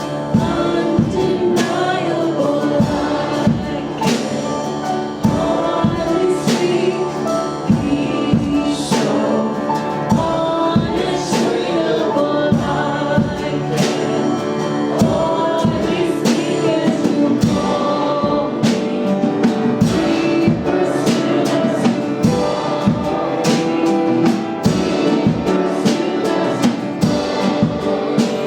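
Worship band playing with group singing, drums keeping a steady beat.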